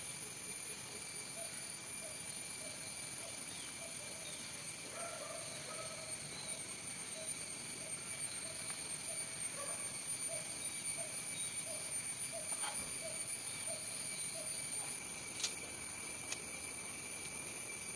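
Outdoor background of insects droning steadily at a high pitch, with a bird repeating a short call about two times a second until about 14 seconds in. A few faint single clicks.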